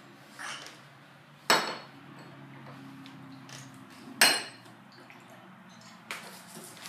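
Two sharp clinking knocks about two and a half seconds apart: a glass bottle knocked against the table among the glassware, each knock ringing briefly, over a faint steady low hum.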